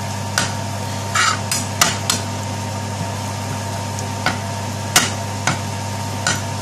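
A cooking utensil scraping and knocking against a frying pan at uneven intervals as ground spices are stirred into fried onions, over a steady low hum.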